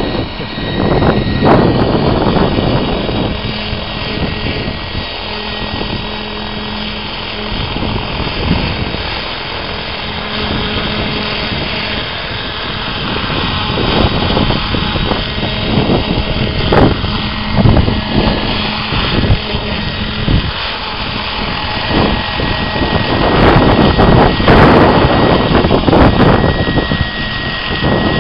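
Radio-controlled model helicopter hovering low: a steady high-pitched whine from its motor and rotors over rushing rotor wash, getting louder near the end.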